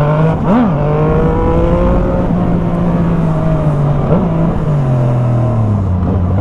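Motorcycle engine breathing through a Jeskap GP2 aftermarket exhaust, heard while riding: a steady running note with two short throttle blips, about half a second in and again about four seconds in. The pitch drops steadily near the end as the bike slows.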